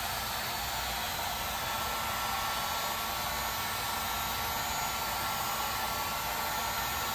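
Electric heat gun blowing steadily against a car's side panel to soften old trim adhesive: an even rush of hot air with a faint steady whine in it.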